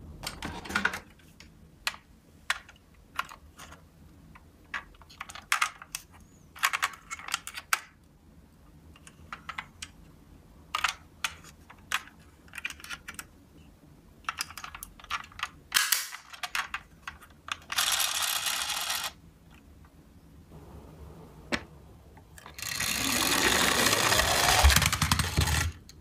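Scattered clicks and knocks of a toy van being handled, then a toy car's motor whirring: once briefly partway through and again for about three seconds near the end, its pitch falling as it runs down.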